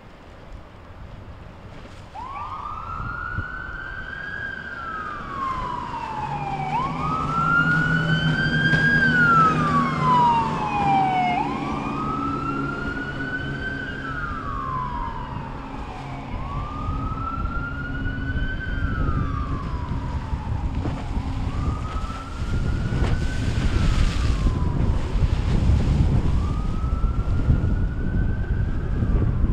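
Emergency siren wailing, a slow rise and fall about every four and a half seconds, loudest about a third of the way in and fading somewhat toward the end. A low steady hum runs under it through the middle, and rough rumbling noise builds in the last third.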